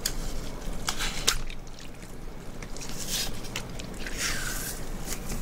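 Bigfin reef squid mantle squeezed by hand, forcing air and water out of the tube: a series of short wet squelching spurts, the longest about three seconds in, with some dripping into a bowl of water.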